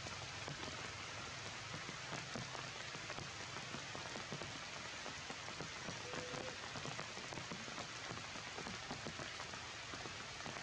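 Heavy rain falling steadily on tree foliage, a dense, even patter of many drops.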